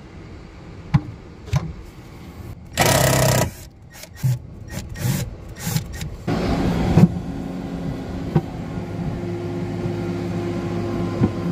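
Cordless drill-driver backing screws out of a fiberglass panel in short runs, with clicks and knocks as the tool and panel are handled. From about seven seconds in, a steady low engine hum runs underneath.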